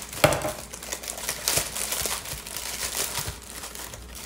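Plastic wrapper of a sleeve of graham crackers crinkling as it is handled and opened, with a sharper burst of crackle just after the start.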